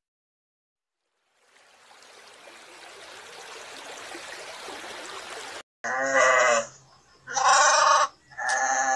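A soft hiss builds slowly and cuts off, then a sheep bleats three times, each bleat under a second long.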